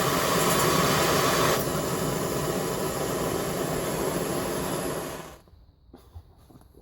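Gas torch burner running at full flow with a steady rushing hiss, fed straight from the bottle with no regulator, so it cannot be turned down. The sound softens a little about a second and a half in, then cuts off suddenly about five seconds in.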